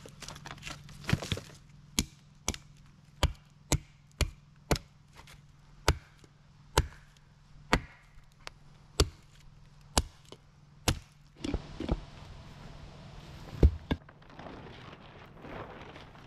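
Hand-splitting old aspen wood on a chopping block with a hatchet and a big knife. A run of sharp wooden knocks comes about one every half-second to second, then a single heavier thud, then some scratchy rustling near the end.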